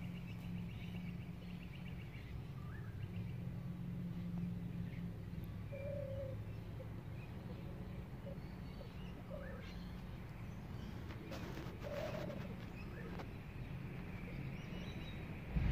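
Scattered short bird calls and chirps over a steady low hum.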